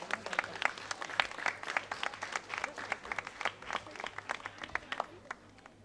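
An audience applauding: many hands clapping in an irregular patter that thins out and stops about five and a half seconds in.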